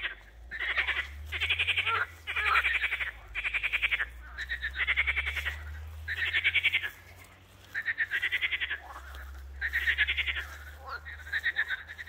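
A chorus of frogs calling from the water: about ten rattling calls, each a quick run of pulses under a second long, following one another with short gaps.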